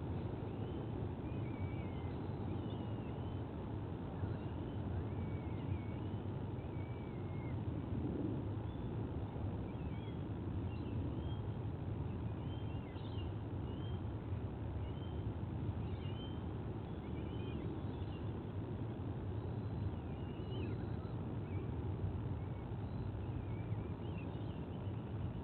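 Many short, high bird chirps and little whistles, scattered irregularly, over a steady low rumble.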